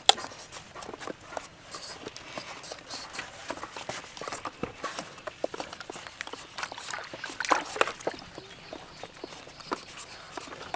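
Handheld metal peelers scraping the skin off firm green papayas, with irregular short scrapes and clicks as several people work, and a sharp click right at the start.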